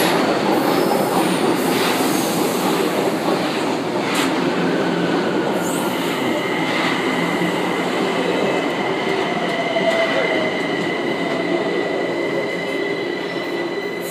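São Paulo Metro Line 1 train pulling into the platform, its cars rolling past close by with steady wheel-on-rail noise. From about six seconds in a thin, steady high squeal from the wheels or brakes runs over it as the train slows. The noise fades gradually near the end.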